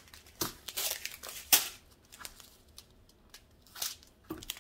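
Small plastic bags of square diamond-painting drills crinkling as they are handled, in a few short crackles, the loudest about a second and a half in.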